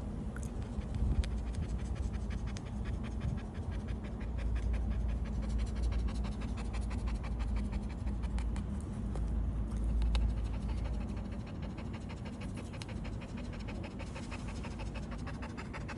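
A dog panting in quick, steady breaths over a low rumble.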